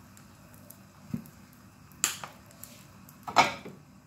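Squeeze bottle of mayonnaise squirting onto food in a frying pan: three short, sharp spurts, the loudest about three and a half seconds in.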